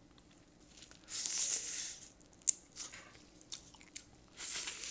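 Close-miked eating of seasoned steamed blue crab: two half-second bursts of biting and sucking at the crab, about a second in and near the end, with a sharp snap between them.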